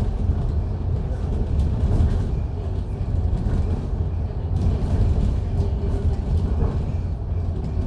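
MAN A95 double-deck bus under way: a steady low rumble of its diesel engine and running noise.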